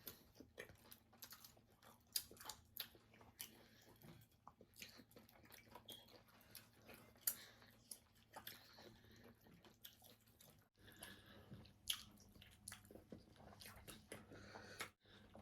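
Close-up eating sounds: irregular chewing, lip smacking and soft crunches as fish and swallow food are eaten by hand, with a few sharper clicks.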